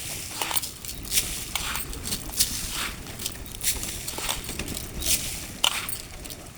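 Birds pecking at scattered grain: a scatter of quick, irregular ticks and taps, several a second.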